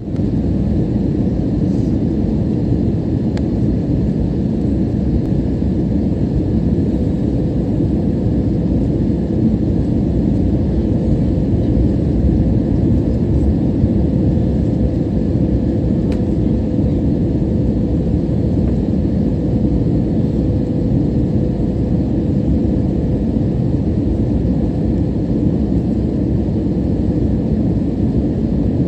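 Jet airliner cabin noise heard from a window seat: a steady low rumble of engines and rushing air with a faint steady hum running through it.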